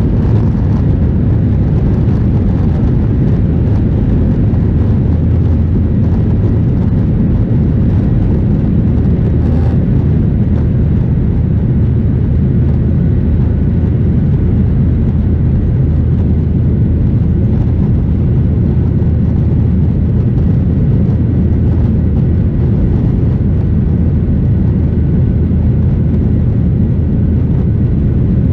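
Boeing 737-800's CFM56-7B turbofan engines at takeoff power, heard inside the cabin over the wing through the takeoff roll, liftoff and initial climb: a loud, steady noise of engines and rushing air, heaviest in the low end, with no marked change in level.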